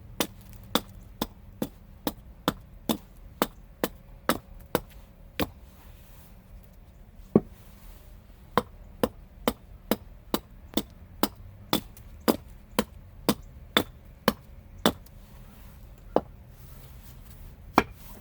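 Hand hammer blows struck in a steady rhythm of about two a second. They pause briefly near the middle, where one single loudest blow lands, then carry on.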